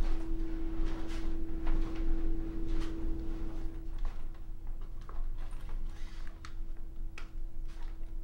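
Film-score drone: one steady held note, strong for about the first half and then fading back, over a low hum, with soft clicks and ticks scattered irregularly on top.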